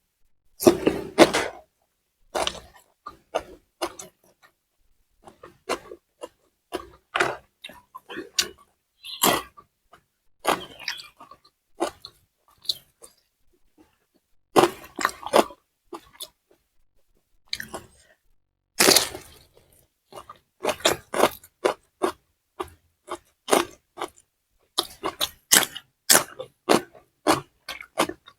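Close-miked eating: irregular bites, crunching and chewing of fried tofu and raw green bird's-eye chilies, with two longer, louder bursts about a second in and about two-thirds of the way through.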